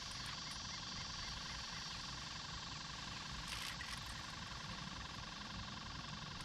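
A steady outdoor chorus of insects, many faint repeating chirps and buzzes layered together, over a low rumble, with a brief hiss about three and a half seconds in.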